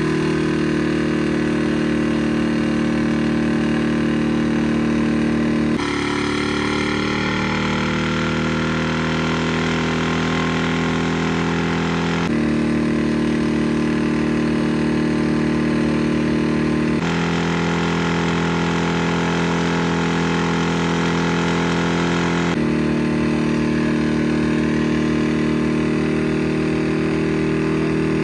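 Car engines held at steady revs during burnouts, in several back-to-back clips; just after a cut about six seconds in, the engine note climbs as it revs up, then holds.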